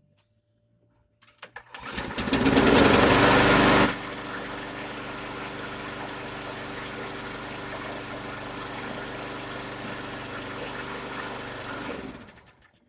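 Scotts walk-behind lawn mower's small four-stroke engine starting about a second in, catching and running loud for a couple of seconds, then dropping suddenly to a steady, quieter run. It is shut off and spins down near the end. It runs well on fresh oil, a new spark plug and a new air filter.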